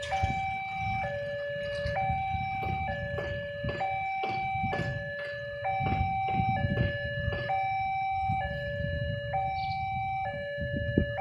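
Railway level-crossing warning alarm sounding: an electronic two-tone signal alternating steadily between a higher and a lower note, each held just under a second, warning that a train is approaching and the barriers are down. A low rumble of idling engines runs underneath.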